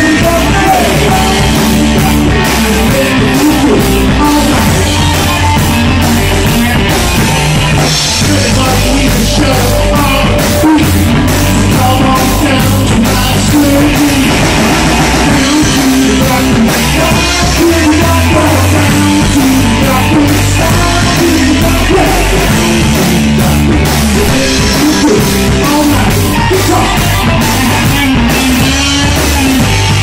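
Live rock band playing loud: electric guitars and a drum kit with a male singer on the lead vocal.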